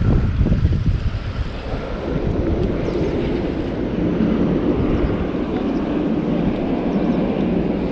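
Wind buffeting the microphone in gusts, settling about two seconds in into a steadier low rumble.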